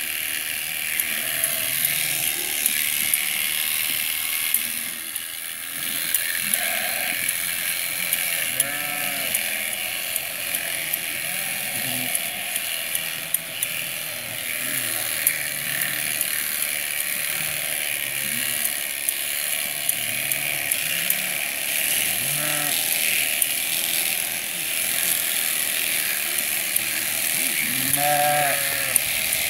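Electric sheep-shearing handpieces running with a steady high buzz and scattered sharp clicks as they cut through fleece. Sheep bleat several times, loudest near the end.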